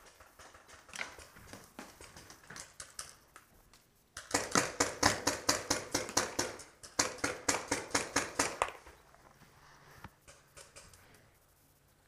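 Paintball marker firing in two rapid strings of sharp pops, about nine a second, starting about four seconds in and stopping near nine seconds, with a brief gap between them. Fainter, scattered pops come before them.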